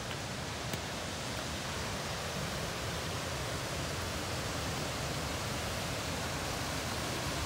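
Steady rushing of a Manitou River waterfall and its rapids, a continuous noise that grows slightly louder toward the end.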